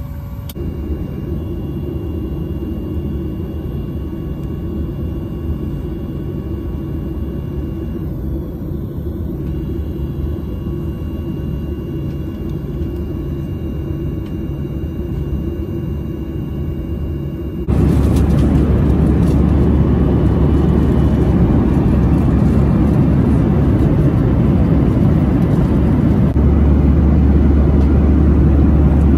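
Airliner cabin noise: a steady low rumble of engines and air. About two-thirds of the way through it jumps abruptly louder and stays there.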